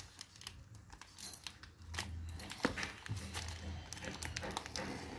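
Hands handling a small tape-wrapped cardboard box while a craft knife scores its packing tape: faint crinkling with scattered sharp clicks and scrapes, busier after about two seconds.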